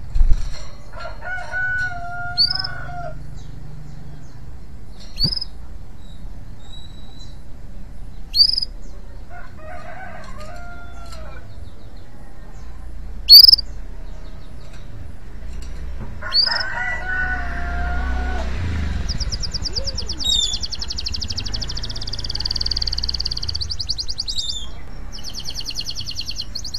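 Male canary in breeding condition giving single upward-sweeping chirps every few seconds, then about nineteen seconds in breaking into rapid, high trilled song. A rooster crows three times in the background over a low traffic rumble.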